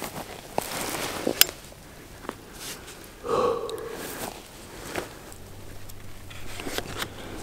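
Quiet handling sounds of people lying in dry grass with a rifle: soft rustling and scattered small clicks, one sharp click about one and a half seconds in and a short muffled rustle or thump about three and a half seconds in.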